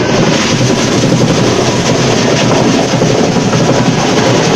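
Electric block-ice crusher running with a loud, steady rattling clatter.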